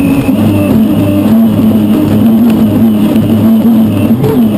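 Unlimited hydroplane's gas-turbine engine heard from inside the cockpit at racing speed: a loud, steady drone with a wavering high whine and a low pulsing underneath.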